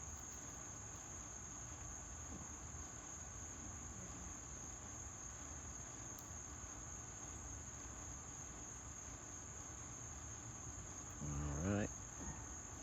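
Steady, unbroken high-pitched trilling of an insect chorus. A short pitched voice-like sound comes in near the end.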